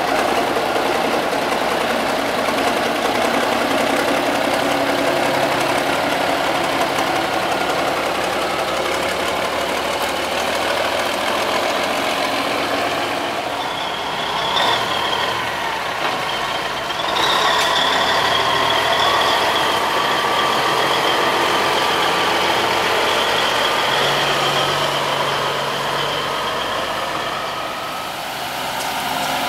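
Diesel engines of classic semi tractors running as the trucks drive slowly past one after another. From about halfway through, a high steady whine sits over the engine noise, falling slightly in pitch.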